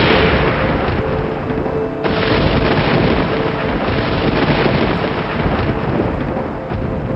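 Thunder rumbling loudly as a dense, continuous roll, with a fresh crack breaking in about two seconds in. Faint sustained musical tones sit underneath.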